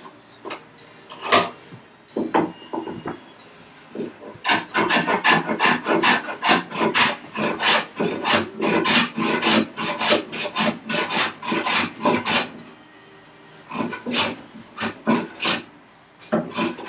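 Hand plane taking quick, short strokes across the grain of a curly maple board, about four rasping strokes a second. A few scattered strokes come first, the steady run starts about four seconds in, and there is a brief pause about twelve seconds in before a few more strokes.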